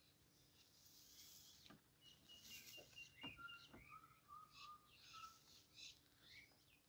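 Faint birdsong: a run of short chirps and whistled notes, some briefly held and some sweeping in pitch.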